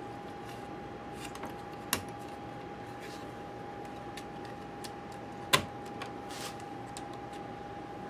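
Small clicks and taps of a laptop hard drive and its bracket being handled and worked into a MacBook Pro's drive bay. Two sharper clicks come about two seconds and five and a half seconds in, the second the loudest, over a faint steady tone.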